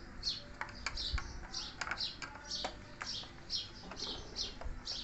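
A bird chirping over and over, short high falling chirps about two or three a second, with a few light clicks mixed in.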